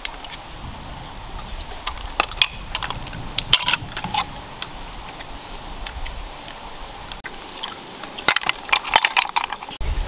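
Snail shells clicking and knocking against one another and against bamboo picks as the meat is pried out. The sharp clicks come in two clusters, about two seconds in and again near the end.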